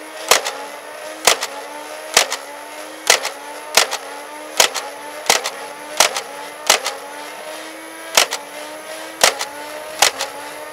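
Dartzone Savage Spin foam-dart blaster firing a rapid string of darts, about one shot every three-quarters of a second, while its battery-powered flywheel motor whines steadily. Each trigger pull gives a sharp clack, and the motor's pitch sags a little and climbs back after every dart.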